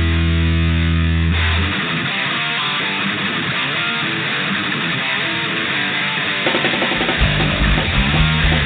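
Punk rock song with electric guitar. A held, bass-heavy chord stops about a second and a half in, a guitar carries on alone, and bass and drums crash back in near the end.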